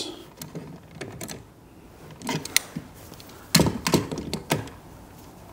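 Light, scattered clicks and knocks of a hose connector's lock nut being spun on and hand-tightened on a can filler's panel, the loudest few about three and a half to four and a half seconds in.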